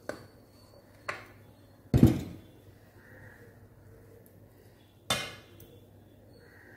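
Metal cookware clanking: a pressure cooker knocked against the rim of an aluminium pot while biryani is tipped out, and a metal skimmer ladle striking the pot as the rice is stirred. There are four sharp clanks, the loudest about two seconds in and the last about five seconds in.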